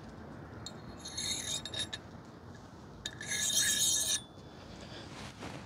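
Two bursts of rasping, scrubbing noise, each about a second long, the second one louder, as the disassembled motorcycle fork parts are rubbed clean.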